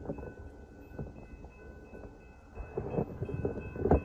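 Wind buffeting the microphone in uneven gusts, heavier in the last second or so, over two faint steady high tones.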